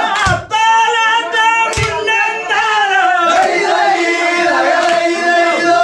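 Group of men singing Vanchipattu, the traditional Kerala snake-boat song, together in unison on long held notes. Two sharp beats cut in near the start, about a second and a half apart.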